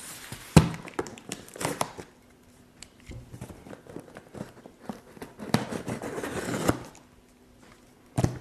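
A knife cutting into a shipping package, with crinkling and tearing of the wrapping: sharp scrapes and ticks in the first couple of seconds, then a longer scraping cut past the middle.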